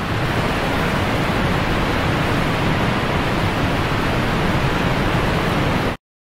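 Rushing river water sound effect: a steady, loud rush of raging water that cuts off abruptly near the end.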